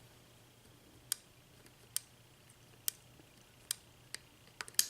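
Sharp metallic clicks of a lock pick working the pin stacks of a six-pin ERA euro cylinder during single-pin picking. The clicks come about once a second, then three in quick succession near the end.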